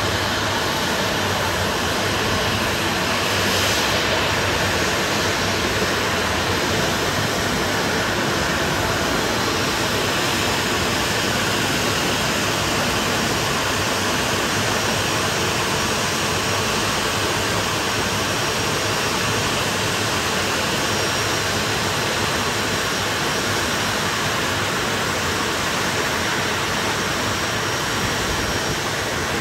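A Boeing 737-800's CFM56-7B turbofan engines running steadily as it taxis in to the stand: a constant rush of jet noise with a faint high whine.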